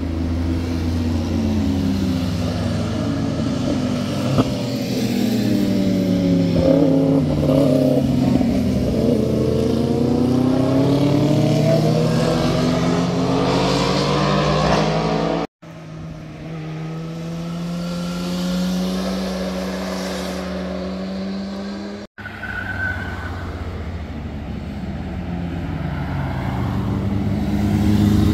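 Motorcycles riding through a hairpin bend. Their engine notes fall in pitch as they slow into the turn and rise as they accelerate out. The sound drops out abruptly twice, about halfway through and again about two-thirds of the way in.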